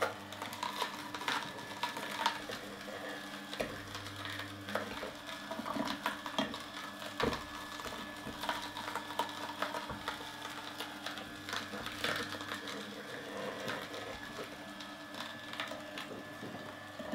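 Solo Star 4 horizontal slow juicer running, a steady motor hum under irregular cracks and crunches as its auger crushes carrot pieces pushed down the feed tube with a plunger.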